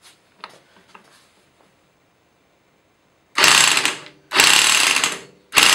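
Electric impact wrench hammering in three short bursts, starting about three and a half seconds in, undoing the clutch centre nut on a Triumph Daytona 675 engine.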